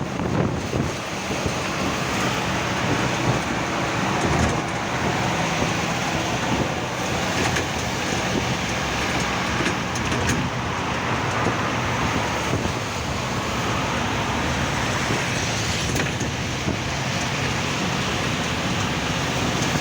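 Road traffic in the rain: a steady hiss of tyres on a wet road with a low engine hum underneath.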